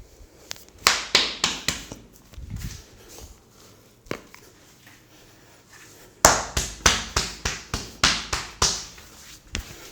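Massage tapping: hands striking a person's body in quick, rhythmic slaps, about four a second. A short run of about five comes near one second in, a lone tap near four seconds, and a longer run of about ten from about six to nine seconds.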